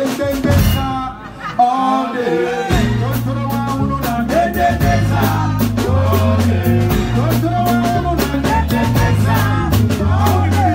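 Live band with drums and a bass line backing two singers who sing into handheld microphones. The bass drops out for about two seconds near the start, then comes back in.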